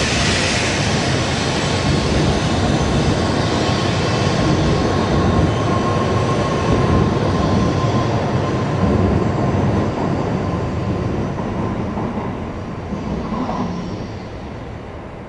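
Shinkansen high-speed train passing at speed: a loud rush of wheel and air noise that holds for about ten seconds, then fades away over the last few seconds.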